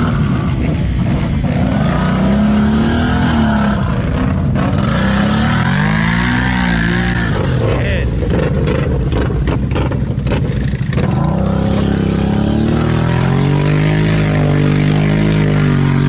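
ATV engine revving up and down over and over, its pitch rising and falling. There is a stretch of irregular clattering about two-thirds of the way through.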